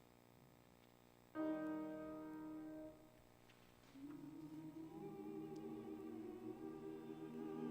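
A held keyboard chord sounds about a second in and stops at about three seconds. About a second later a church choir comes in softly humming, the voices building as more parts join.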